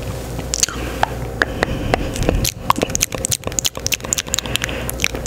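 Close-miked ASMR mouth sounds: a rapid run of wet clicks and lip smacks, thickest in the middle, over a faint steady hum.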